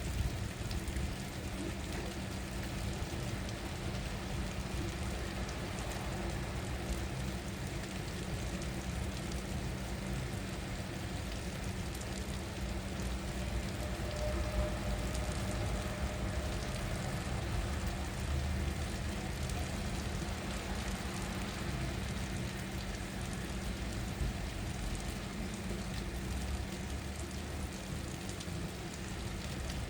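Steady rain falling, with a steady low rumble underneath.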